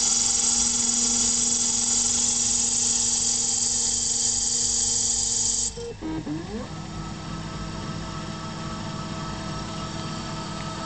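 Emco 5 CNC lathe cutting: a loud steady hiss of the tool taking a cut, over a steady motor whine, stops suddenly about six seconds in. The motor whine then glides up to a higher steady pitch, quieter, and glides back down near the end.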